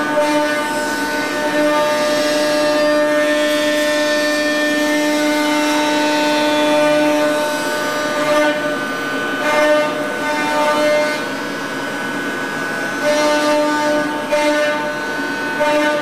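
C.R. Onsrud 148HD25 CNC machining center's spindle and end mill cutting thick friction-stir-welded aluminum: a steady pitched cutting whine with several overtones over a rough noise. The whine breaks up and fades for a few seconds past the middle, then returns near the end.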